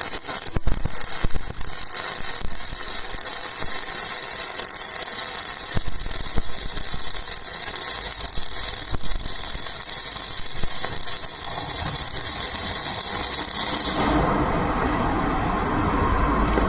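Wire-feed welder arc crackling and sizzling steadily as a bead is run on steel, with a few pops as the arc strikes at the start; the arc cuts off about fourteen seconds in.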